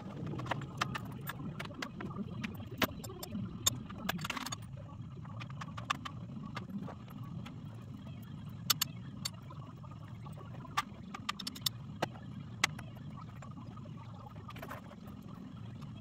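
Small metal hardware (bolts, nuts and screws) clinking as it is handled and sorted, in scattered sharp clicks over a steady low background noise.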